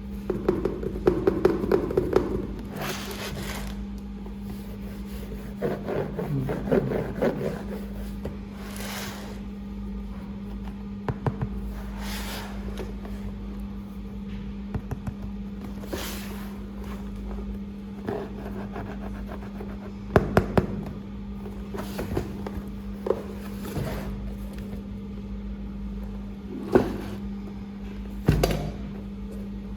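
Handling of a toy's box and packaging: scattered scrapes, knocks and clicks, with a steady low hum underneath.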